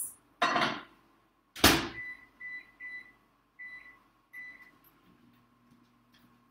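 Microwave oven being shut and started: a knock and a sharp thunk of the door closing, then five short keypad beeps, and the oven begins running with a low steady hum about five seconds in.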